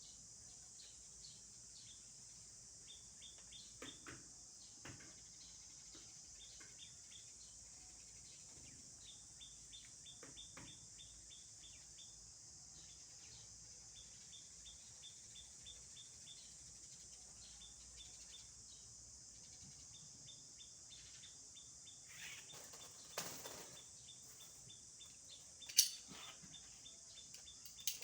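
Quiet outdoor ambience: a steady high insect hiss with trains of short, high bird chirps. A brief rustle comes a little past twenty seconds in, and a sharp click follows shortly before the end.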